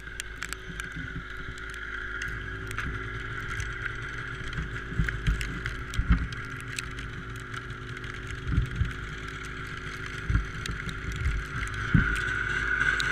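Yamaha Apex snowmobile's four-stroke four-cylinder engine idling steadily, a little louder near the end, with scattered knocks and rustles from glove handling close to the microphone.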